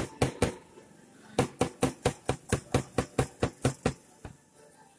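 Quick run of sharp knocks on a hard surface: a few near the start, then about a dozen at roughly five a second from about a second and a half in, stopping near four seconds.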